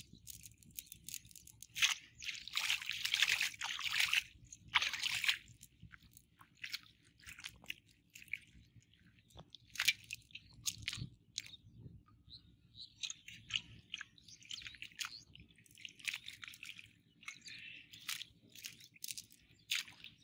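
Wet squelching and crackly rustling of a fishing net being worked by hand through mud and weeds in shallow water, in irregular bursts, busiest about two to five seconds in.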